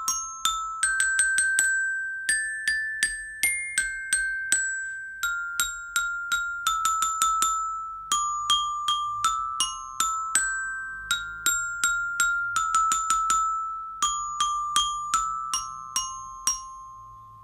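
A children's metallophone with coloured metal bars on a curved wooden base, struck one note at a time with a wooden mallet, playing a simple melody. The notes follow at about two or three a second, each ringing bright and bell-like, and the last note is left to ring and fade near the end.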